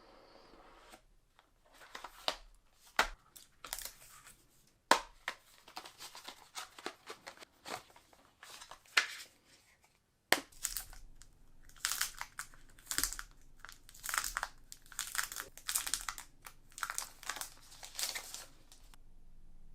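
Hands unboxing a Vivo V40 smartphone: a run of sharp clicks and taps as the box and its contents are handled. From about ten seconds in come long stretches of dense rustling and crinkling of packaging, which stop about a second before the end.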